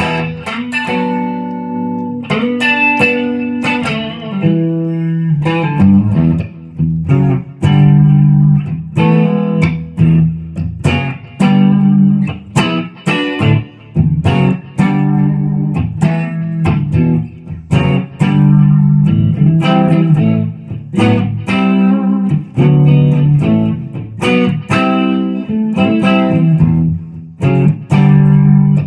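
1996 Epiphone Les Paul Custom electric guitar with Gibson 490 humbuckers, played as picked riffs and chords with many sharp pick attacks and brief breaks between phrases.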